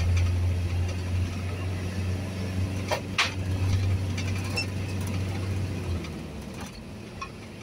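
Vehicle engine and road noise heard from inside the cabin while driving: a low steady hum that drops away about six seconds in, with two sharp clicks about three seconds in.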